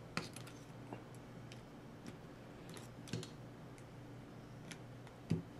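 Light, scattered clicks and taps of small knife parts handled by hand: a steel liner being worked out of a Spyderco Endura 4's FRN handle scale. There are about half a dozen clicks, with a sharper one just after the start and the loudest near the end.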